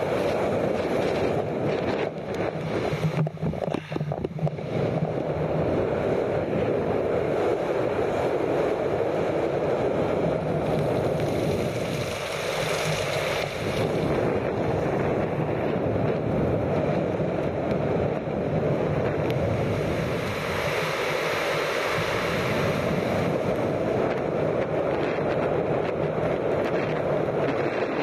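Wind rushing over a camera microphone carried on a canyon swing rope as the rider swings, a steady rush that swells twice.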